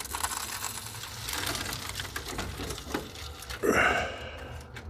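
Rustling and scraping of a hand and phone moving against wood and wire mesh in a pigeon loft, with scattered light clicks, and a short vocal sound about four seconds in.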